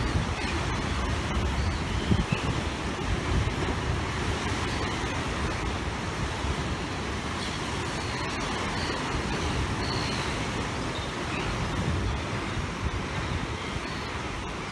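Sea surf breaking and churning against coastal rocks, a steady rushing wash of water, with wind buffeting the microphone in low, uneven gusts.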